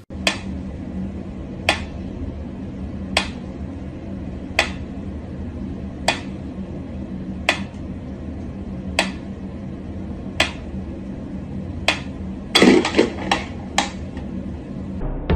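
Mechanical pyramid metronome ticking slowly and evenly, one sharp tick about every second and a half. Near the end comes a brief, louder clatter, followed by a couple of ticks closer together.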